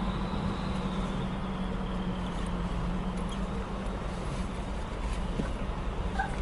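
Steady running noise of a car heard from inside the cabin: a low engine hum with a constant drone under road noise.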